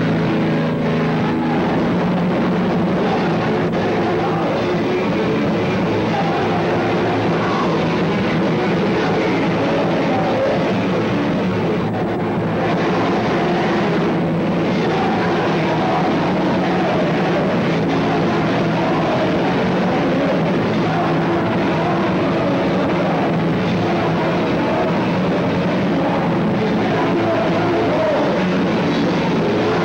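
Live punk band playing loud and without a break: electric guitar and drum kit.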